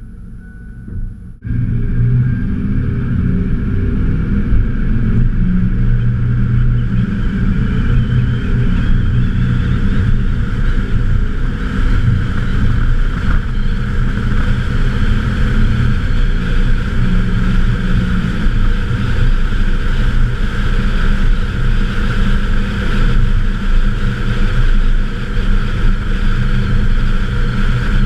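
1995 Ford F-150's 5.0 L 302 V8 exhaust with the cutout closed, so it runs through a second catalytic converter and a Cherry Bomb Extreme muffler. A steady low rumble while the truck drives down the road, heard from the rear window. It comes in suddenly about a second and a half in.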